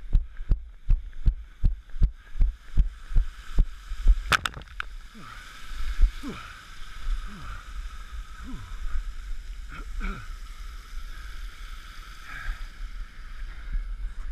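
Running footsteps on a dirt trail, carried as heavy thuds through a body-worn camera at about three strides a second. About four seconds in the stride stops with a louder knock, and slower irregular bumps and strained breathing sounds follow as the runner climbs over a wall obstacle.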